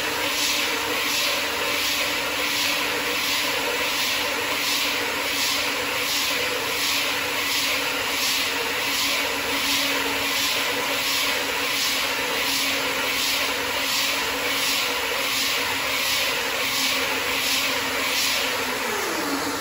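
Two-shaft automatic roll-cutting machine running: a steady motor hum under a hiss that pulses about twice a second. Near the end the hum drops in pitch as the drive winds down.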